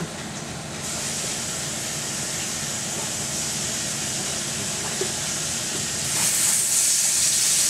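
Hot pork-chop drippings sizzling steadily in a stainless steel skillet under a mound of flour, the first stage of a pan gravy. The sizzle grows louder about six seconds in as a whisk starts working the flour into the fat.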